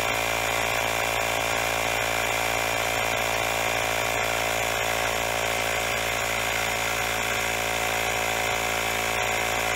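Grepro portable tire inflator's small compressor running steadily as it pumps a motorcycle's rear tire up to its 42 psi preset, nearly there.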